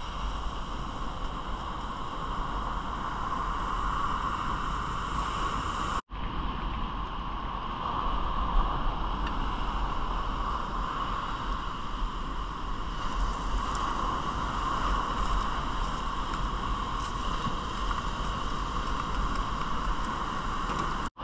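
Steady rushing noise with a low rumble underneath, cutting out for a moment about six seconds in.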